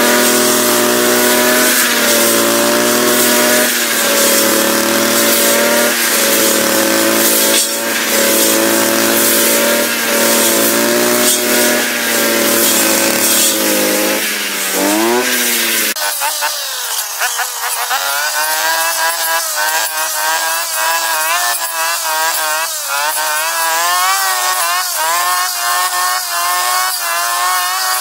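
Dolmar MS 3202 petrol brush cutter running while cutting tall dry grass. Its engine hums steadily at first. About halfway through it rises in pitch and keeps running higher, its pitch wavering as the load changes.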